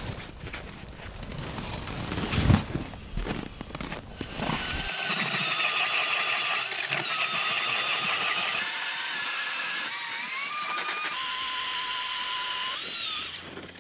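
A cordless drill driving an ice auger whines as it bores through lake ice, its pitch sagging and rising with the load. Before it, there is rustling and a sharp knock as a pop-up ice shelter is handled.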